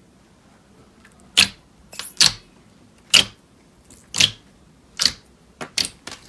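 Slime being pressed and worked by hand, giving a series of sharp crackling pops, about nine in all at uneven spacing. The pops come faster near the end.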